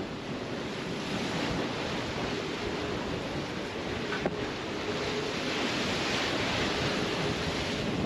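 Rushing water along the hull and wind buffeting the microphone aboard an IMOCA 60 racing yacht sailing fast through open sea. A faint steady hum comes and goes.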